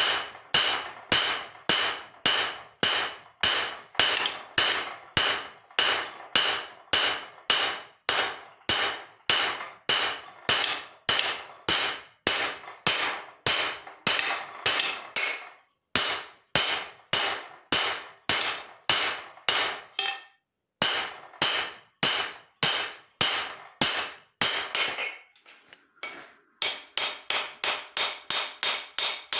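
Hand hammer forging leaf-spring steel on an anvil: steady blows about two a second, each with a ringing clang, broken by two brief pauses. After a short lull near the end come quicker, lighter blows.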